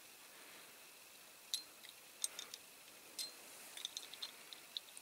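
Faint, sharp clicks of small parts on a diecast model tractor being handled and pressed together: a few separate clicks, then a quicker run of tiny ticks near the end.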